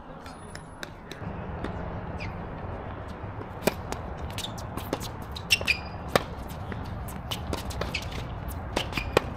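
Tennis balls being hit and bouncing on a hard court: a scattered series of sharp pops, with short rubber shoe squeaks about five and a half seconds in and again near the end, over a steady low rumble.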